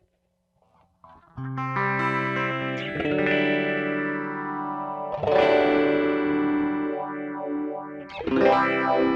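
Electric guitar played through a pedalboard of effects pedals: after a second and a half of near silence, chords are struck three times and left to ring. Each chord carries a sweeping modulation effect that makes its tone rise and fall.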